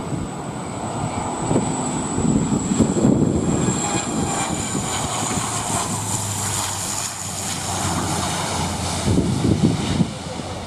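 Airliner engines passing close by: a steady rush with a high whine that slowly falls in pitch, over gusts of strong wind on the microphone.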